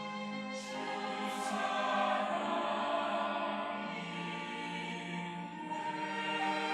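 Church choir singing an anthem in several parts, holding long sustained chords.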